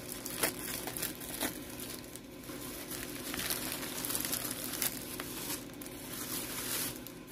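Tissue-paper wrapping crinkling and rustling as it is handled and unfolded, with a sticker seal being peeled off it.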